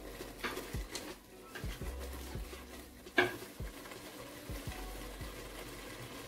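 Wooden spoon stirring soup in a large aluminium stockpot, with scattered soft knocks and one sharp click about three seconds in.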